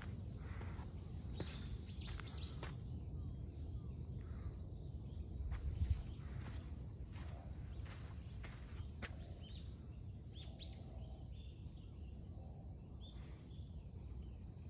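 Insects trilling steadily and high-pitched, with a few short rising bird chirps about two seconds in and again about ten seconds in. Underneath are a low rumble and scattered light clicks.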